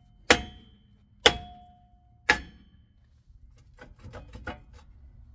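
Hammer striking a rusted-on rear brake rotor three times, about a second apart, each blow leaving a short metallic ring, to break the seized rotor loose from the hub. A few lighter clicks and rattles follow in the second half.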